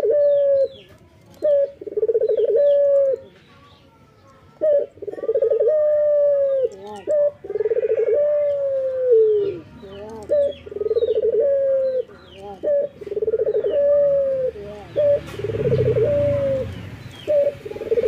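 A male Barbary dove (ringneck dove) cooing over and over, a rolling coo about every two to three seconds with a short note before it. Small birds chirp faintly in the background, and a low rumble builds near the end.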